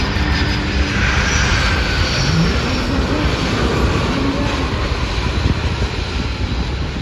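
Aircraft engines running steadily as a large airplane flies its final approach to land with gear down, a loud, even rush of engine noise.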